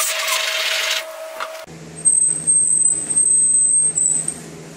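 Woodshop power tools running, in two clips joined by a hard cut. First a router gives a hissing rush with a steady tone. About a second and a half in, the sound changes abruptly to a table saw's motor hum with a thin high whine, which stops about four seconds in while the hum goes on.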